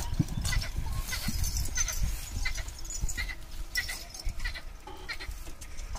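Bullock cart drawn by a pair of oxen moving along a dirt track under a heavy load: hooves and the cart give low, uneven thumps and rumbling. Many short, high clicks or chirps are scattered over it.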